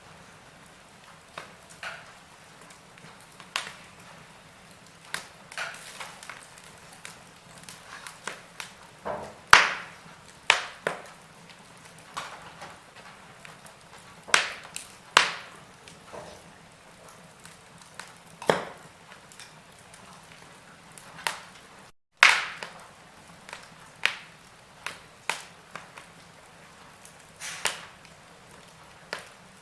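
Wood fire burning in a fireplace, crackling with irregular sharp pops and snaps, one every second or so, over a faint steady hiss. The sound cuts out for an instant about three-quarters of the way through.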